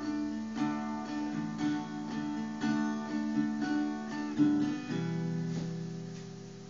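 Acoustic guitar strummed in a steady rhythm, then a final chord about five seconds in that rings out and slowly fades.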